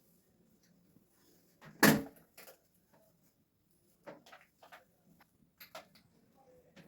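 One sharp, loud knock about two seconds in, then several lighter knocks and clicks.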